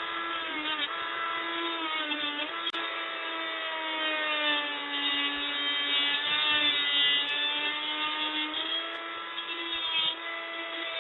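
Renovator oscillating multi-tool, which he calls noisy as hell, running steadily while it cuts the small metal tabs of the door speaker mount. It makes a high whine that dips a little in pitch under load in the middle and then recovers.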